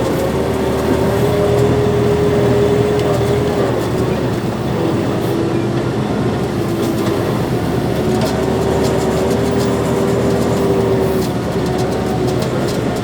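Farm tractor running steadily while pulling a seed planter across the field, with a steady whine that wavers slightly in pitch over the engine's rumble and rattle.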